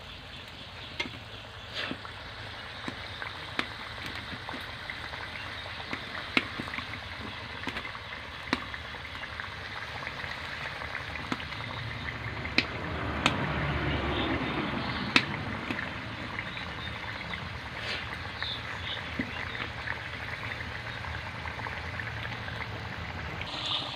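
Fish curry simmering and bubbling in an aluminium kadai over a wood-fired clay stove: a steady bubbling hiss with scattered sharp pops, growing louder for a few seconds around the middle.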